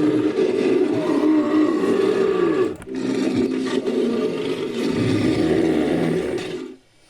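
Designed creature roar sound effect, layered from big-cat and bear roars and a human voice: two long roars, the first breaking off about three seconds in and the second fading away near the end.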